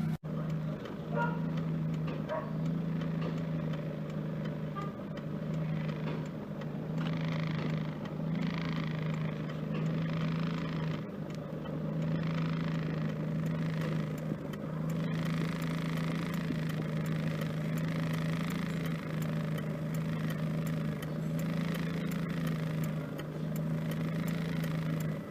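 1992 Mitsubishi Lancer GTI engine idling with a steady, even hum, warmed up after a newly fitted MAF sensor cured its rough idle.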